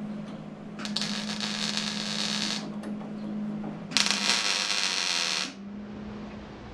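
MIG welder tacking a steel patch panel into a Land Rover front grille: two bursts of crackling arc, the first about two seconds long starting near a second in, the second about a second and a half long, over a steady hum.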